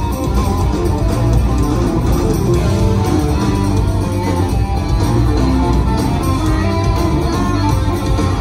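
A live band playing, electric guitars over drums and keyboards, heard from within the crowd.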